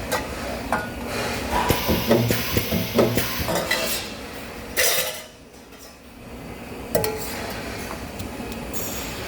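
Metal parts clinking and clattering as they are handled at a spot-welding workstation, with a short loud burst of hiss about five seconds in, followed by a brief lull.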